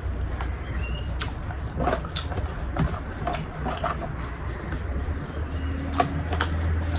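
Close-miked eating sounds: chewing and sucking on spiced chicken feet and heads, with irregular wet mouth clicks and small crunches, over a steady low hum.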